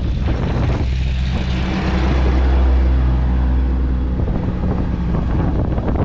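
Vehicle engine and road noise with wind buffeting the microphone; a louder low engine drone swells and fades in the middle.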